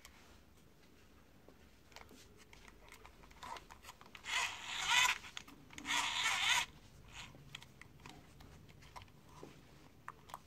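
Hard plastic toy train being handled: two brief rasping bursts, about a second each, around four and six seconds in, with faint clicks and rubbing of plastic between them.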